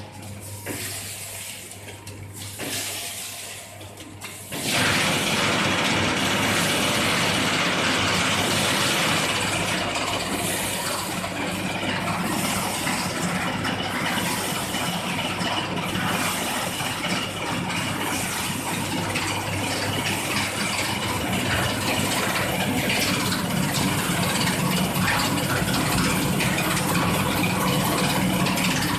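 Sugar packing machine running: a low steady hum, then about five seconds in the machine suddenly comes on loud and keeps running with a dense, steady mechanical rattle and rush.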